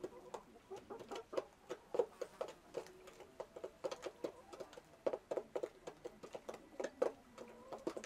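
Chickens clucking: many short, quick clucks in overlapping runs, with sharp clicks between them.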